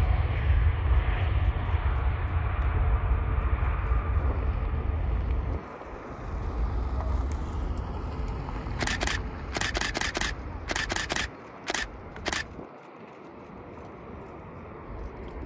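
Low rumble of a jet airliner's engines that drops away suddenly about five and a half seconds in. Later a DSLR camera's shutter fires in several quick bursts of sharp clicks.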